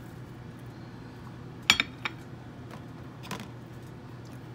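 A few sharp clinks of a small glass bowl knocking against a ceramic dinner plate as it is set down. The loudest is a quick double clink about a third of the way in, with lighter ones after, over a faint steady hum.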